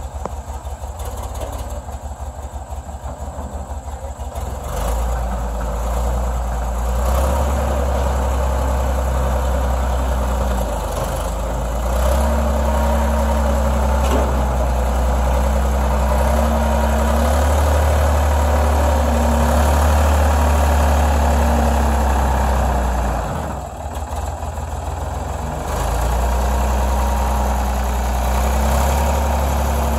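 Ford backhoe loader's engine idling with a steady pulse, then throttled up about five seconds in and held at higher revs as the front loader lifts a tractor tire. It eases off briefly about three quarters of the way through, then comes back up.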